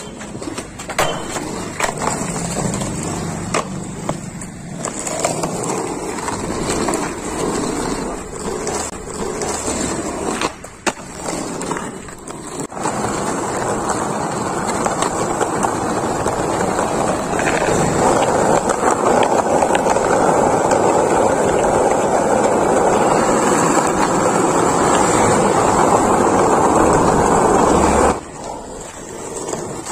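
Skateboard on an asphalt road: scattered clacks of the board over the first half, then a long stretch of its wheels rolling loudly over the rough surface, growing louder and cutting off suddenly near the end.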